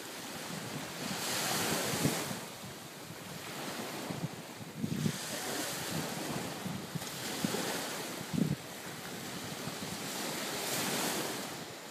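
Small sea waves breaking and washing up a sandy shore, swelling loudest about a second in and again near the end, with wind buffeting the microphone.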